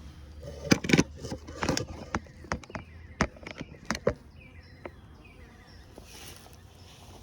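Handling noises from hive parts being moved: a quick run of clicks, knocks and scrapes, loudest about a second in, thinning out by about five seconds in.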